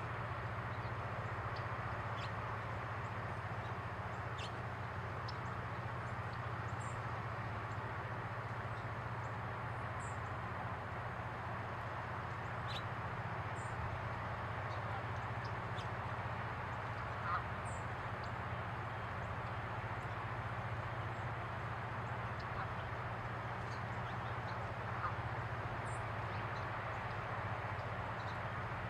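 Female house finch giving short, high chirps every few seconds over a steady background hiss and low hum.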